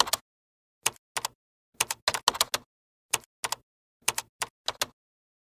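Keyboard typing sound effect: short, sharp key clicks in irregular clusters over dead silence, stopping about five seconds in.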